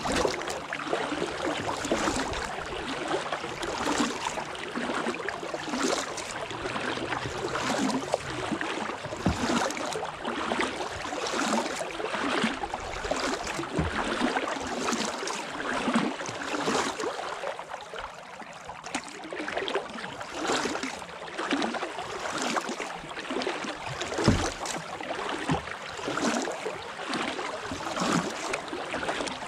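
Kayak paddle dipping into calm river water in steady strokes, splashing and dripping about once a second, with one sharper knock about two-thirds of the way through.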